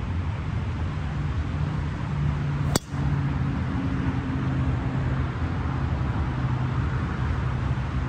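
A golf driver strikes a teed ball once, a single sharp crack about three seconds in, over a steady low rumble.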